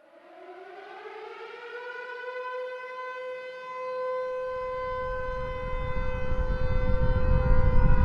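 Civil defense warning siren starting up from silence, its pitch rising over the first couple of seconds and then holding steady as it grows louder. A low rumble builds beneath it from about halfway.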